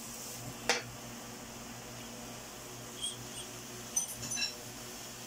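Chopped onions and ginger frying in oil in a non-stick pan with a faint, steady sizzle. There is one sharp knock of the wooden spoon against the pan just under a second in, and a few small high clinks between about three and four and a half seconds.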